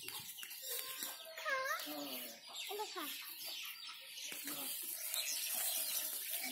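Domestic fowl clucking: a run of short pitched calls.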